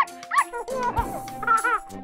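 A few short, high puppy-like yips, each rising and falling in pitch, over cartoon background music with a beat.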